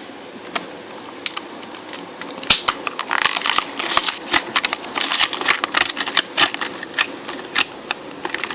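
Plastic blister pack of a die-cast toy car being opened by hand: a few light clicks, then from about two and a half seconds in a dense run of crackling plastic snaps and taps.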